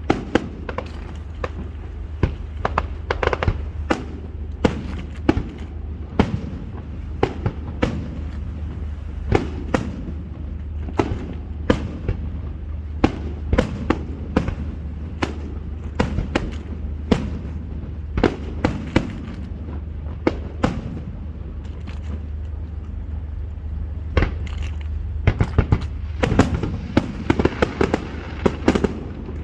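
Fireworks display going off: sharp bangs and crackling shell bursts in quick, irregular succession, coming thicker near the end, over a steady low rumble.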